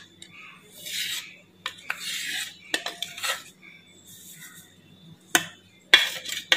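A metal spoon scraping and clinking against a mixer-grinder jar as freshly ground sambar powder is tipped out onto a plate, with soft hissing slides of powder between sharp clinks that bunch together near the end.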